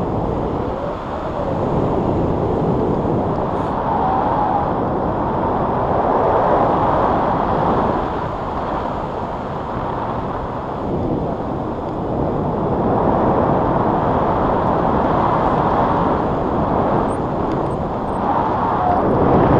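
Wind from a paraglider's flight rushing over a pole-mounted camera's microphone: a loud, steady rush that swells and eases every few seconds.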